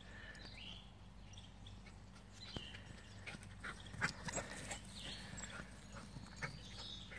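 Soft irregular thumps and rustles of footsteps running on a grass lawn, starting about two and a half seconds in and loudest about four seconds in.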